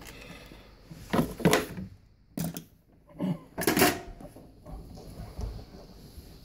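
About five sharp knocks and clatters from pliers working a hose clamp onto the dishwasher drain hose at the garbage disposal's inlet.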